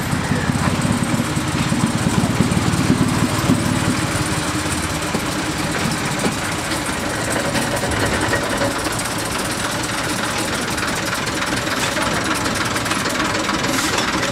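Small narrow-gauge diesel locomotive's engine running with a rapid, steady low beat as it moves slowly toward and past the listener.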